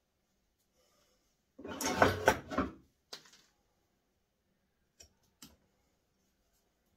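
Bonsai hand tools being handled: a brief clattering rattle of metal tools about two seconds in, a smaller rattle just after, and two light clicks near the five-second mark.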